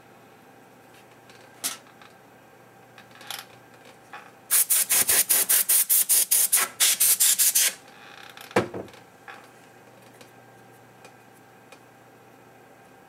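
Rapid back-and-forth rubbing or scrubbing strokes by hand, about seven a second for some three seconds, with a few light knocks and clicks before and after.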